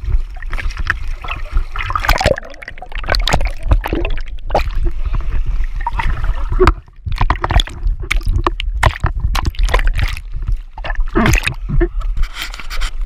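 Sea water splashing and gurgling around a camera dipped in and out of the surface beside a boat, in many irregular splashes over a steady low rumble.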